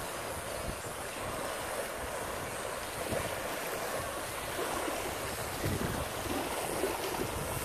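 Small waves lapping on a sandy lake shore: a steady wash of water noise, with wind buffeting the microphone.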